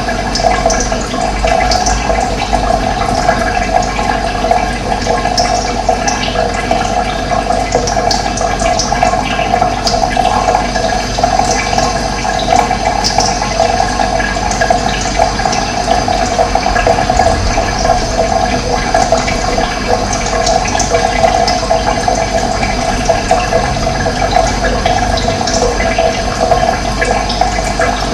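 Steady running water, a continuous rushing flow, with short bird chirps now and then above it.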